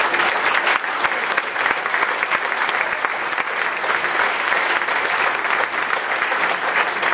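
Crowd applauding: many hands clapping in a steady, dense patter.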